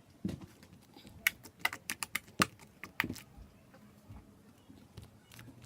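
A quick run of irregular sharp clicks and taps, about a dozen in the first three seconds, then only a few faint ones.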